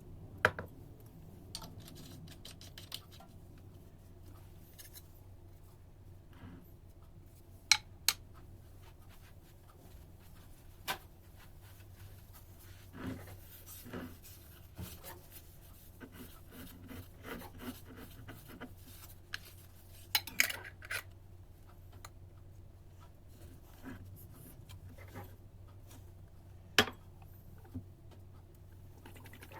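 Kitchen dishes and utensils being handled: scattered sharp clinks and knocks, loudest about half a second in, near 8 s, around 20 s and near 27 s, with softer scraping and rubbing in between. A faint steady low hum runs underneath.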